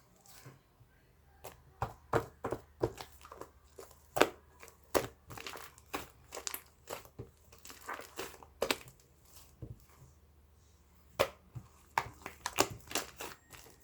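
Irregular sharp crinkling and crunching clicks, some in quick clusters, with a pause of about a second and a half near ten seconds in.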